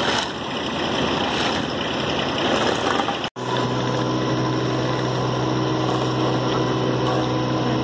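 Diesel engine running, with the scrape of shovels working asphalt. After an abrupt cut about a third of the way in, a small Bomag road roller's diesel engine runs with a steady, even hum.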